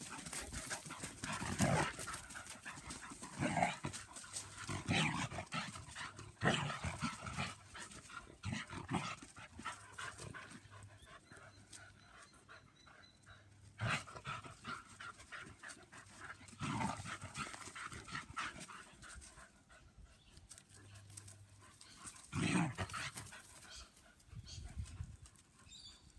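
German Pinschers play-fighting, their dog noises coming in short loud bursts at irregular moments through the scuffle.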